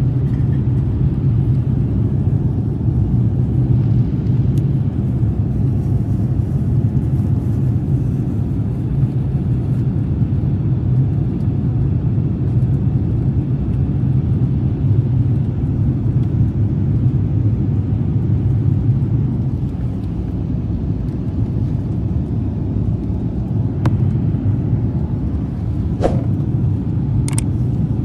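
Airliner cabin noise in flight: a steady, loud low rumble of jet engines and airflow heard from a window seat, with a few faint clicks near the end.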